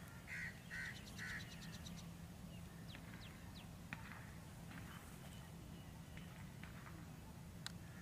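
A crow cawing three times in quick succession, followed by a few faint bird chirps and clicks, over a faint steady low drone.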